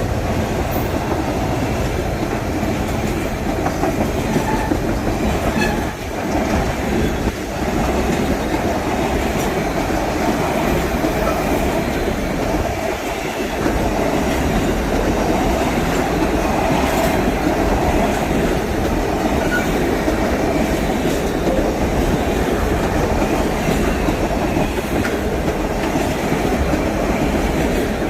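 Freight train cars rolling steadily past, wheels clattering over the rail joints in a continuous loud rumble.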